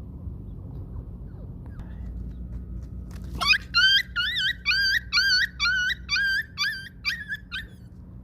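A dog whining in a quick run of about ten short, high, wavering yelps, two or three a second, starting about three seconds in and stopping near the end.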